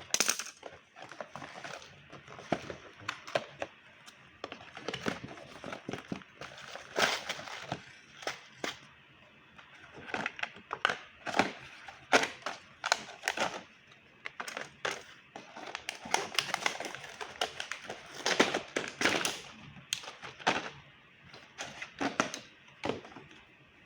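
Parcel packaging being handled and opened: irregular crinkling, rustling and sharp clicks of plastic and paper wrapping, in clusters with brief pauses between.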